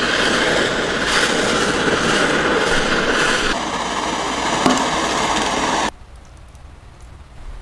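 A power tool abrading a part, a dense steady grinding noise with a faint motor whine in it. It changes pitch about three and a half seconds in and stops about six seconds in.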